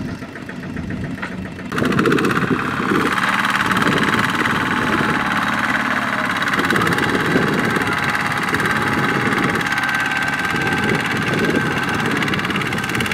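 Kubota two-wheel walking tractor's single-cylinder diesel engine running steadily; about two seconds in it turns abruptly louder and harsher and stays that way.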